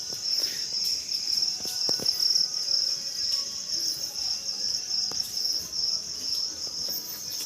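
A dense insect chorus: a steady, high, finely pulsing chirring, with a few faint clicks or knocks.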